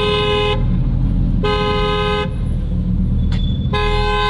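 Lamborghini's alarm honking the car's horn in a steady pattern, set off by a remote key paired to the car. It gives short blasts of under a second about every two seconds, three in all, over low engine and road noise.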